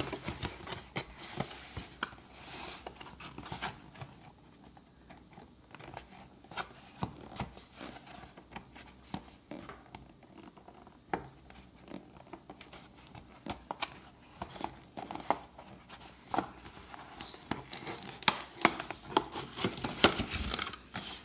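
A cardboard product box being opened by hand: tearing, scraping and crinkling of the packaging, with scattered sharp clicks and taps, busier near the end.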